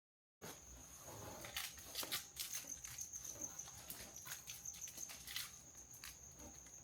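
Silent for the first half second, then a steady high-pitched trill under scattered light clicks and taps.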